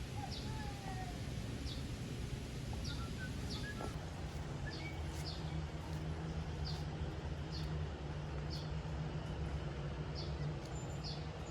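Outdoor ambience of birds chirping, short high calls repeating every second or so with a few faint whistles, over a steady rushing background. A low steady hum comes in about a third of the way through.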